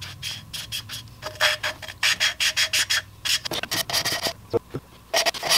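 Valve being lapped into its seat on a Yamaha Warrior 350 cylinder head: the lapping stick is spun back and forth by hand, so the valve face grinds against the seat in quick gritty rasps, several a second. The lapping is meant to make a valve seal that the Dykem check showed was not fully contacting its seat.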